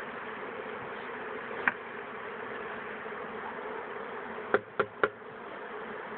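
Honeybee swarm buzzing steadily. A single knock about two seconds in and three quick, sharp knocks about four and a half seconds in.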